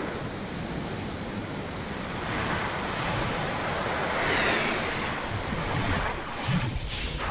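Rushing, whooshing sound effects of an animated distributor logo intro. The sound swells about halfway through, with a couple of sharper hits near the end.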